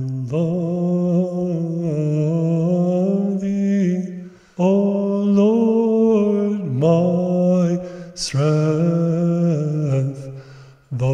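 Unaccompanied male chanting of an Orthodox hymn: long held notes with small turns in the melody over a steady low drone note. The chant pauses briefly about four seconds in and again near the end.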